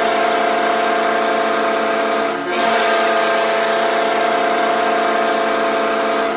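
Hockey goal horn sounding: a loud, steady horn of several tones at once. It dips briefly about two and a half seconds in, then sounds on.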